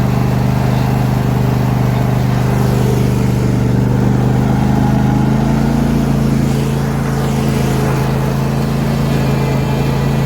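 John Deere D125 riding lawn tractor engine running steadily under load, with a slight change in its note about halfway through.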